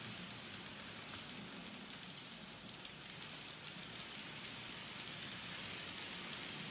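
N-scale model train, two Union Pacific diesel locomotives pulling double-stack container cars, running along the track: a faint, steady rushing noise of motors and wheels that grows a little louder as the train comes close.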